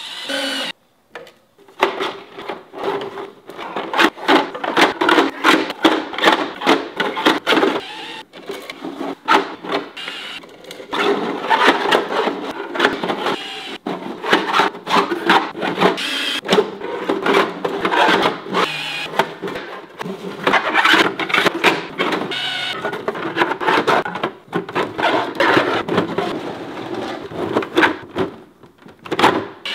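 Dense, irregular clacking and knocking of large hard plastic megaminx pieces being handled and fitted together.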